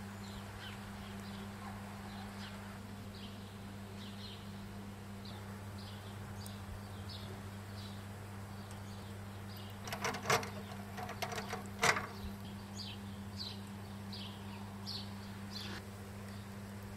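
Small birds chirping over and over above a steady low hum. About ten seconds in, a short run of clicks and a clatter as tongs knock against the stainless steel grill while turning the kebabs.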